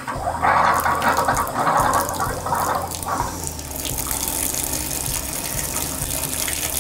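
Water running from a bathtub spout into the tub: splashing unevenly for about three seconds, then a steadier rushing hiss. The new pressure balance valve trim and spout are being run to test them.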